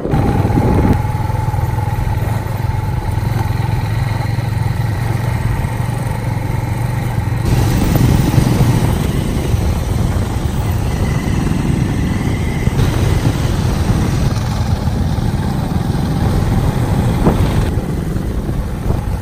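Motorcycle engine running steadily on the move, with road and wind noise. The sound changes abruptly about seven, thirteen and eighteen seconds in.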